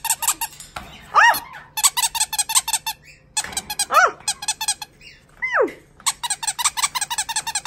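Rubber squeaky toy squeezed in quick runs of squeaks, several a second, broken by short pauses and by three longer squeals that glide up and down in pitch.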